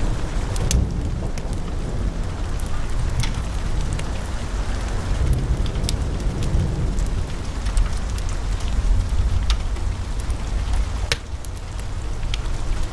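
Wood fire burning in a fireplace: a steady low rumble of flames, with sharp crackles and pops from the logs at irregular moments.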